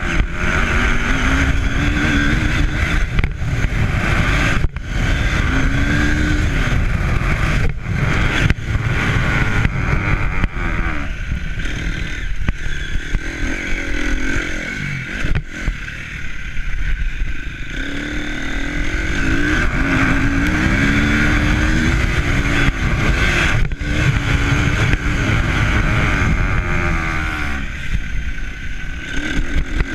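A motor vehicle engine running and repeatedly rising and falling in pitch as it speeds up and slows down, under heavy wind rumble on the microphone.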